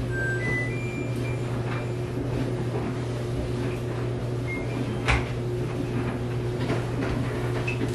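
Washer and dryer control panels beeping as their buttons are pressed: a quick run of short electronic beeps at different pitches, then single beeps a few seconds later and near the end. Underneath is a steady low appliance hum, and a single knock comes about five seconds in.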